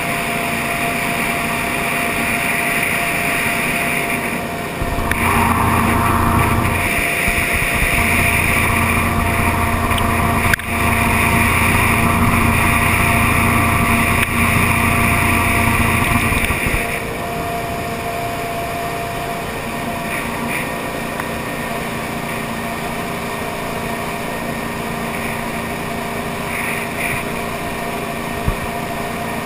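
V8-powered tunnel-hull jet boat running at speed over open water, engine and water rush going steadily. It grows louder for about twelve seconds in the middle, with a single sharp knock partway through, then eases back to a steady run.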